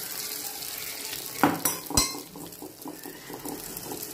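Beaten egg sizzling in hot oil in a small non-stick frying pan, with a spoon knocking sharply against the pan twice about a second and a half in, then scraping and stirring through the frying omelette.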